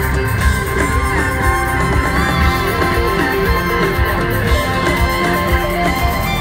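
Rock band playing live through an arena PA: an instrumental stretch of held notes over a steady drum beat, with no singing.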